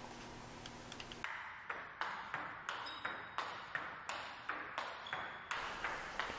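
Table tennis rally: the celluloid-type ball clicking off the paddles, one of them faced with Butterfly Dignics 80 rubber, and bouncing on the table. It starts about a second in as sharp, evenly spaced ticks, about three a second.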